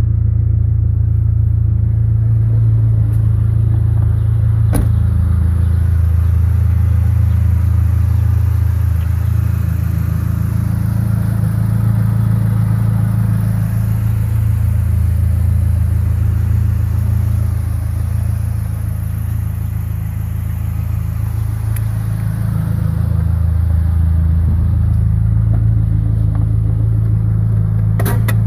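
Dodge Neon SRT-4's turbocharged 2.4-litre four-cylinder engine idling steadily with a low, even hum.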